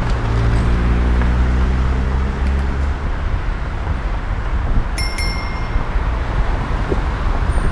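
Steady street traffic and road noise from riding a bicycle down a city boulevard, with the hum of a car's engine passing in the first three seconds. A bicycle bell dings once about five seconds in.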